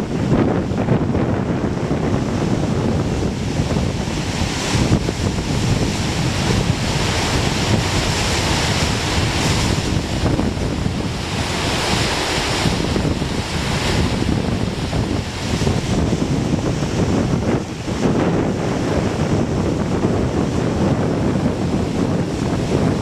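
Whitewater river rapids rushing steadily, with a brighter hiss in the middle stretch, and wind buffeting the microphone.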